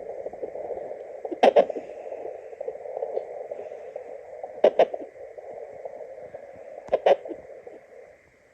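A baby's hiccups in the womb picked up by a home fetal doppler: three sharp double knocks, about two and a half seconds apart, over the doppler's steady whooshing hiss.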